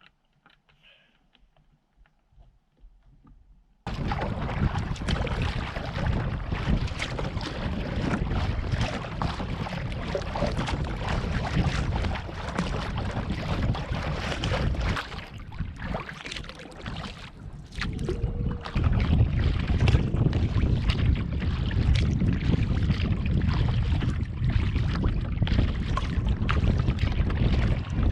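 Wind buffeting the microphone over water noise from a kayak on a lake, a loud rumbling rush that starts abruptly about four seconds in after near silence and dips briefly past the halfway point.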